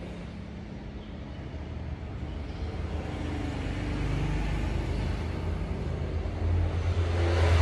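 A motor vehicle passing by: a low engine rumble that grows steadily louder and is loudest near the end.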